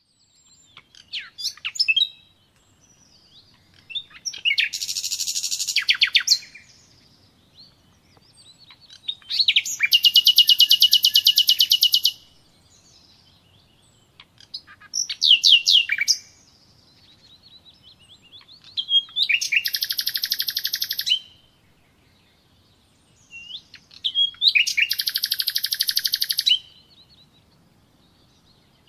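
A songbird singing the same phrase over and over: a few sharp, sliding notes leading into a fast, even trill lasting about two seconds, repeated roughly every five seconds with short pauses between.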